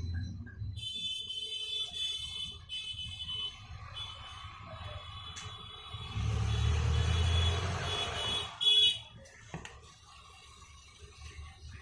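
A steady high electronic tone, like an alarm or beeper, sounding for about eight seconds with a few short breaks. A low rumble swells under it in the second half.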